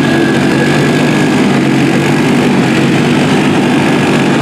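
Small gasoline engines of a four-wheeler and a riding lawn mower running steadily at full throttle, pulling against each other under heavy load.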